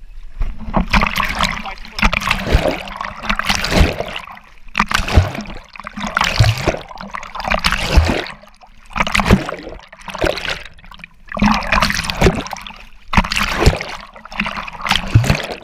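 Water splashing and sloshing in repeated surges, roughly one every second and a half, over a faint low steady hum.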